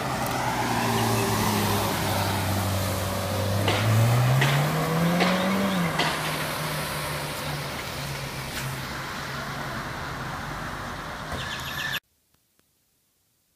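Ferrari 458's 4.5-litre V8 running as the car moves off. The engine revs up with a rising pitch about four seconds in, then settles and fades as the car pulls away. The sound cuts off abruptly near the end.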